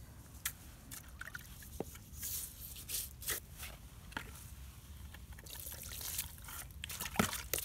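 Water poured from a plastic bucket over a string trimmer's cutting head and guard, splashing and trickling off as old grass is rinsed away, with a few knocks as the bucket and trimmer are handled.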